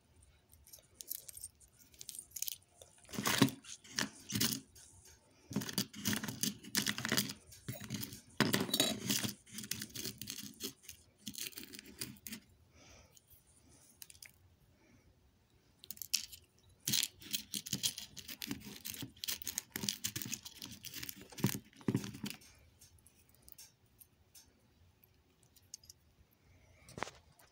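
Handling noise from a phone held against the body: irregular bursts of rustling, scraping and sharp clicks as the microphone rubs on skin and clothing, with a lull of a few seconds in the middle and one lone click near the end.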